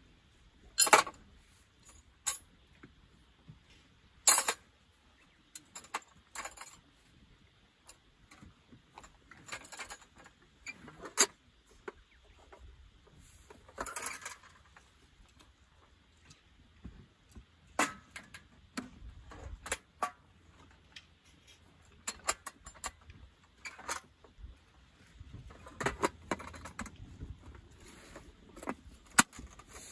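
Metal tent stakes clinking and clanking as they are gathered and dropped into a metal tool box, in irregular sharp knocks with softer rattling and rustling of rope between.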